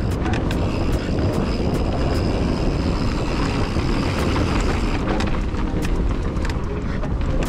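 Mountain bike riding fast downhill over dirt and rock slabs: steady wind rush on the camera microphone and tyre roar, with scattered sharp clicks and rattles from the bike over the rough ground.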